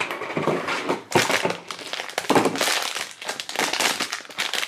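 Silver foil blind-box bag crinkling and crackling as it is crumpled and handled, in irregular bursts.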